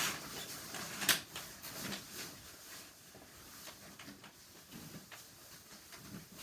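Handling noise from toys being picked up and moved about: rustling at first, a sharp click about a second in, then faint small knocks and rustles.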